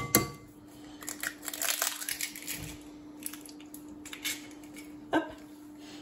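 An egg knocked on the rim of a glass mixing bowl, a sharp crack with a short ring, then crackling as the shell is pulled apart and handled, with another light knock a little after five seconds in. A faint steady hum sits underneath.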